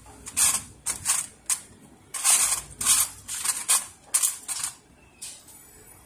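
A quick series of short scraping, rustling sounds, about a dozen in six seconds with brief gaps and most of them in the middle seconds, from hands handling parts and material while the cleaning web is being fitted.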